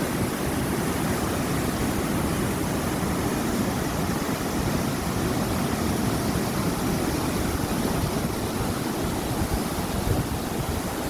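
Mountain valley stream, water rushing in a steady, even roar.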